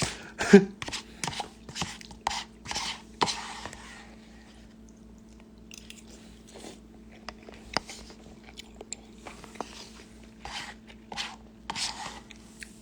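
Mouth sounds of someone eating instant ramen: chewing and biting, with a flurry of wet clicks and short noisy bursts in the first few seconds, then quieter and more scattered. A faint steady hum runs underneath.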